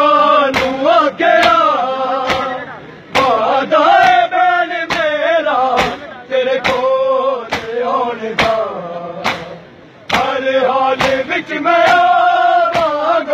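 A crowd of men chanting a Punjabi nauha (mourning lament) in unison while beating their chests in matam, the open-hand slaps landing together in a steady beat about twice a second.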